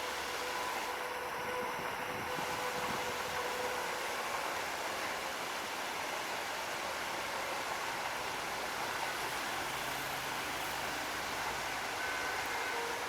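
Passenger train running past in torrential rain: a steady hiss of heavy rain mixed with the rolling noise of the train.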